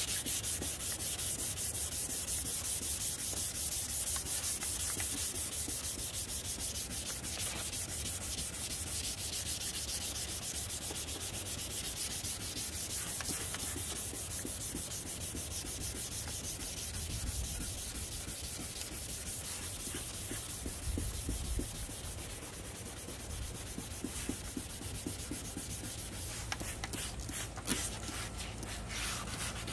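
Steady sanding of a plastic headlight lens with 400-grit sandpaper, stripping old clear coat that comes off easily. Continuous gritty hiss, a little quieter in the second half.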